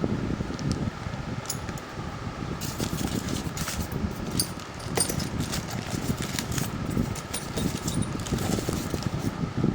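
Metal drill bits and plastic tool-case parts clinking and clicking as they are handled, with scattered light clicks over a steady background noise.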